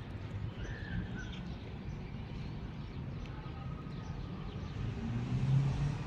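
Steady low rumble of distant traffic, swelling louder near the end as a vehicle passes, with a short faint high chirp about a second in.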